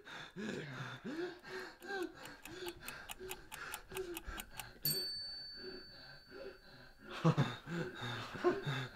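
Quick, even clock-like ticking, about five ticks a second, that stops with a single bell-like ding about five seconds in; the ding rings out and fades over about two seconds. Low voices murmur underneath.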